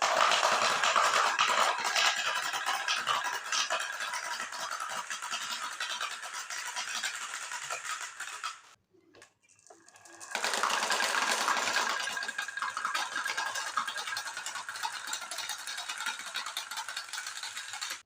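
Many marbles rolling and clattering down marble-run tracks: a dense rattle of small clicks that starts suddenly, dies away after about eight and a half seconds, and starts again after a short pause.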